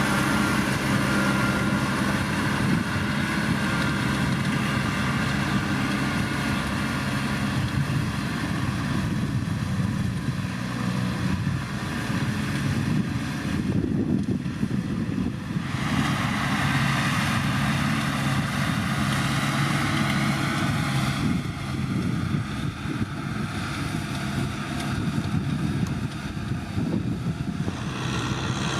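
Kubota M6040SU tractor's diesel engine running steadily under load while ploughing, its low even tone with a rushing noise over it.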